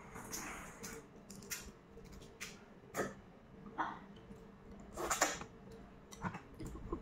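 Fingers peeling the shell and inner membrane off a boiled balut (fertilized duck egg): scattered small cracks and crinkles at irregular intervals, with a louder cluster about five seconds in.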